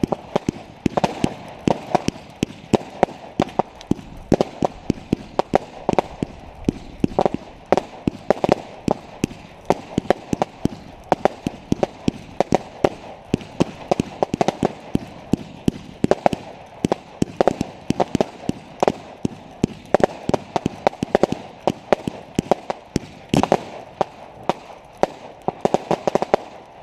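Fireworks going off in rapid succession: a continuous stream of sharp bangs and crackles, several a second, that stops abruptly at the end.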